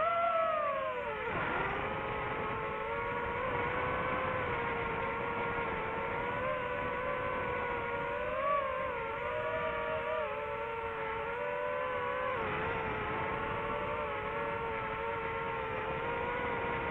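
DJI FPV drone's motors and propellers whining in flight. The pitch dips briefly about a second in, then holds steady with small rises and falls as the throttle changes.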